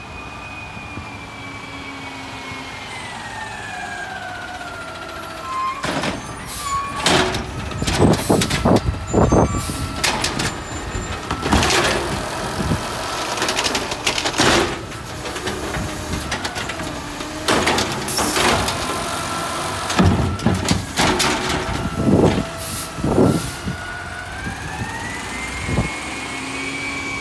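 Automated side-loader garbage truck: its whine falls in pitch as it pulls up, then comes a long run of loud bangs and clatters as the arm lifts a wheeled cart, shakes the trash out into the hopper and sets it back down. The whine rises again near the end as the truck moves on.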